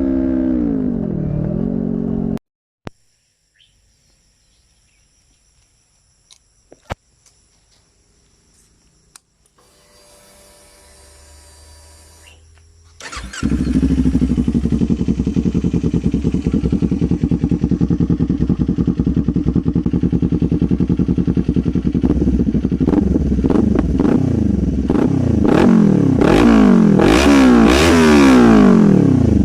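Kawasaki Z400 399cc parallel-twin engine with a slip-on aftermarket muffler. Its revs fall, then the sound cuts out to near silence with a few clicks and a faint steady whine. About halfway through the engine starts and idles, then from about two-thirds of the way in it is revved in repeated quick throttle blips that come closer together near the end.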